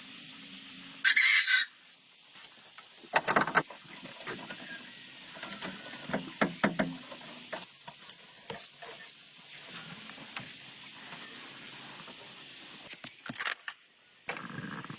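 Chickens calling, with a loud short call about a second in, amid scattered sharp knocks and clanks.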